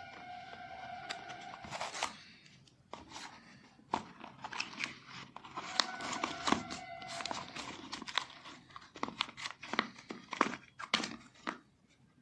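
Crinkling and crackling handling noise with many sharp clicks, and twice a steady squeaky rubbing tone lasting a second or two, at the start and about halfway through.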